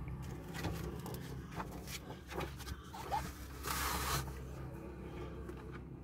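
Plastic face shield and clothing rustling and scraping while it is pulled on over the head, with scattered small clicks and a longer scratchy rustle about four seconds in, over a low steady rumble.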